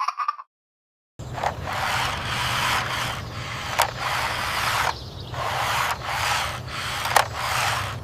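Toy off-road car's plastic wheels rolling across a surface, starting about a second in: a steady rumbling hiss with a low hum beneath it and a few sharp clicks.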